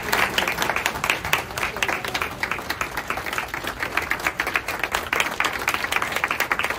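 Audience applauding: many hands clapping without a break.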